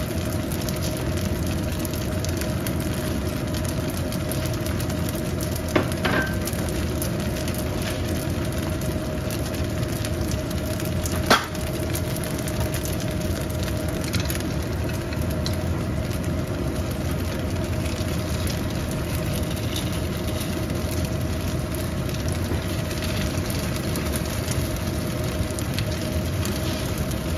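Food frying in a pan, a steady sizzle with a steady hum underneath and two sharp clicks, about six and eleven seconds in.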